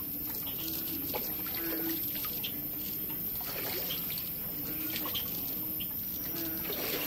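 Knee-deep floodwater trickling and splashing softly as someone wades through it, with small irregular splashes.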